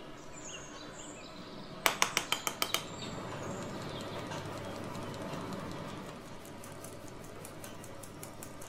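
Flour being sifted through a metal mesh sieve into a glass bowl: a quick run of about six sharp taps about two seconds in, then a steady scratchy rustle of flour being worked through the mesh, with light regular ticks near the end.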